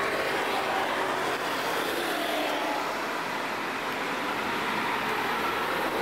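Steady street traffic noise, a continuous hum of passing vehicles.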